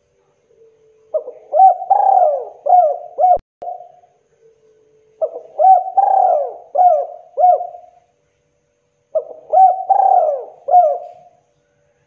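Spotted dove (tekukur) cooing: three phrases of several quick notes that each rise and fall in pitch, about four seconds apart.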